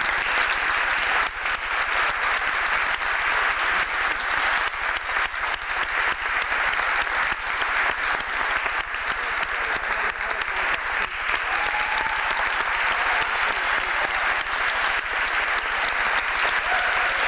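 Audience applause for a concert band, breaking out just as the band's last note ends and continuing as a steady, dense clapping.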